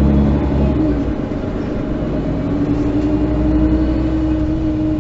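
Mercedes-Benz O530 Citaro city bus heard from inside the passenger cabin while driving: a low engine rumble with a steady drivetrain hum that rises slowly in pitch through the middle.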